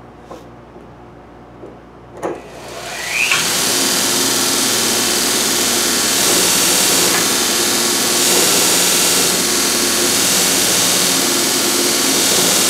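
Homemade 2-inch belt grinder switched on: a click about two seconds in, then a rising whine as the electric motor comes up to speed, and the sanding belt runs steadily over its wheels with a hum and a hiss. The grinder is running to check whether the spring-loaded idler arm gives the belt enough tension.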